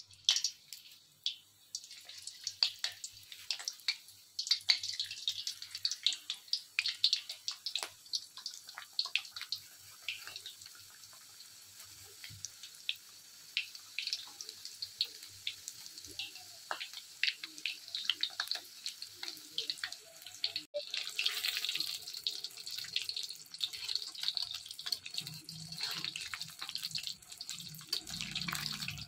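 Samosas deep-frying in hot oil in a wok: a steady high sizzle full of sharp crackling pops, turning into a denser, fuller sizzle about three quarters of the way through.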